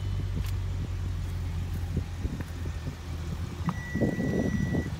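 Audi S5 engine idling with a steady low hum. About three-quarters of the way in, a steady high beep sounds for about a second over a brief rustle.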